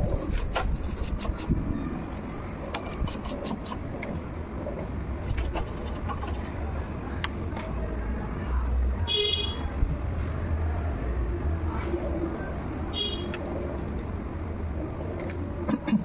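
Steady low rumble of road traffic, with a short high-pitched vehicle horn toot about nine seconds in and a fainter one about thirteen seconds in. A few sharp clicks come in the first few seconds.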